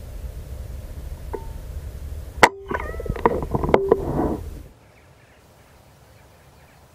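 Single sharp crack of a .22 pre-charged air rifle firing, about two and a half seconds in, followed by a second or two of clatter as the wood pigeon flaps off the wire. The shooter thinks the pellet took only feathers. Wind rumbles on the microphone until about four and a half seconds in.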